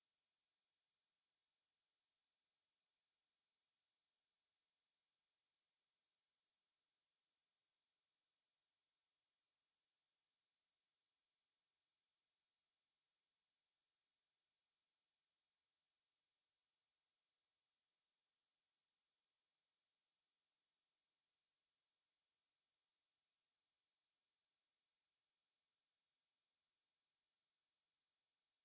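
A pure 4911 Hz sine-wave test tone, held steady at one high pitch and constant level.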